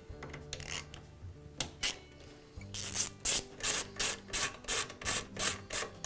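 A hand tool turning out the screws of an airless paint sprayer's front cover: a few scattered scrapes, then from about halfway a regular rasping, about three strokes a second.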